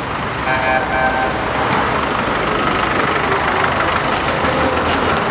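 Town street traffic: the steady noise of cars and vans running, with a vehicle horn tooting briefly about half a second in.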